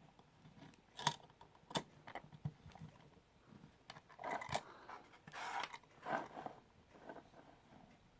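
Small metal parts being handled: a lock and its picking tools clinking, with a few sharp clicks and short metallic rattles and scrapes.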